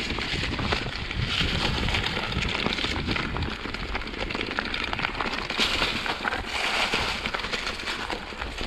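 Mountain bike riding down a rough trail, heard through an action camera's microphone: a steady rush of wind on the microphone, with the tyres crackling and rattling over the ground throughout.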